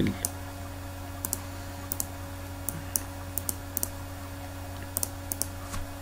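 Scattered light clicks of a computer mouse and keyboard, about a dozen, often in quick pairs, over a steady low hum.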